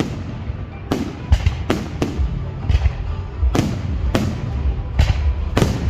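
Fireworks bursting: about ten sharp bangs at uneven intervals, each trailing off briefly.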